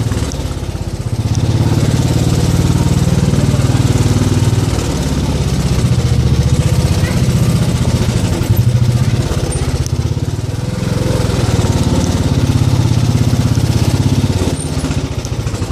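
Small motorcycle engine running at low speed, its throttle picking up and easing off: quieter about a second in and again about two-thirds through, louder in between.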